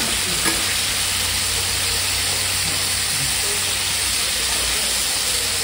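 Beef and offal sizzling steadily on a flat iron griddle as a metal spatula turns the meat and mixes in raw cabbage. There is a short click about half a second in.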